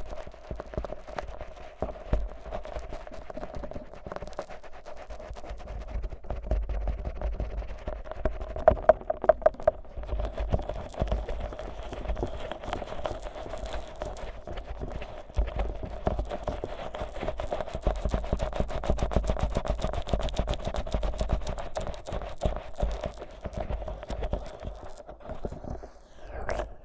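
Fingers coated in thick, sticky Vaseline rubbing and massaging the silicone ears of a 3Dio binaural microphone, giving a dense, irregular run of wet, sticky clicks and crackles, with a few sharper clicks about nine seconds in.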